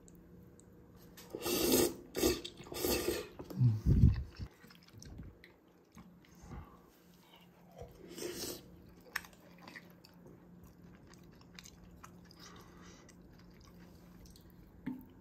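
A person eating spicy instant ramen noodles close to the microphone: a few loud slurps in the first few seconds and another near the middle, with chewing and soft mouth clicks in between and after.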